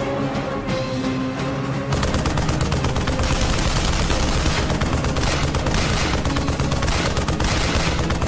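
Dramatic background music, then from about two seconds in, sustained rapid automatic gunfire over it, the loudest sound.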